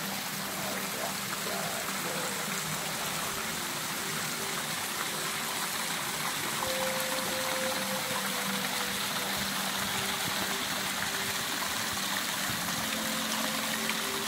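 Steady rush of running water from small rock waterfalls spilling into a penguin pool, with a faint steady hum beneath it.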